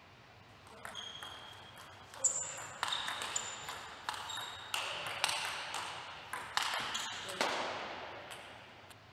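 Table tennis rally: the ball clicking off the rackets and pinging on the table in a quick run of about a dozen hits, from about a second in until near the end.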